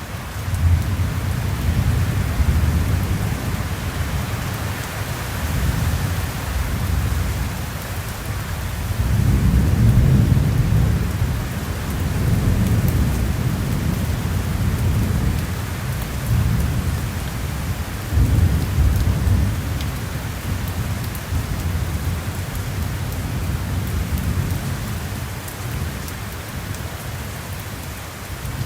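Thunderstorm: steady heavy rain with rolling thunder rumbling low in the background, swelling loudest about a third of the way in and again past the middle, then easing off toward the end.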